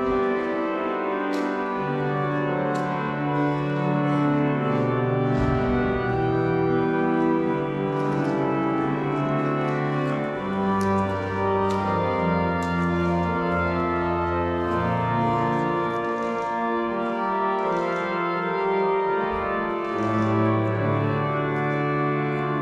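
Church organ playing slow, sustained chords over a bass line that moves every second or two.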